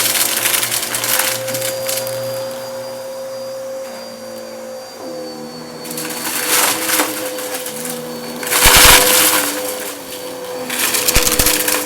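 Bissell vacuum cleaner running with a steady motor whine, over which come repeated bursts of crackling crunch as it sucks debris out of a shag rug; the loudest burst is about nine seconds in.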